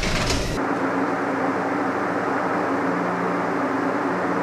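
Rustling handling noise from a camera being moved, cutting off abruptly about half a second in, then a steady machine hum with several constant low tones, like a fan or motor running.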